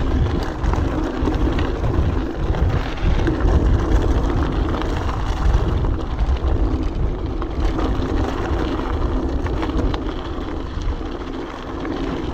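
Orbea Alma mountain bike ridden over a rocky trail: wind rumbling on the action camera's microphone, tyres crunching over rock and gravel, and the bike rattling with many small knocks.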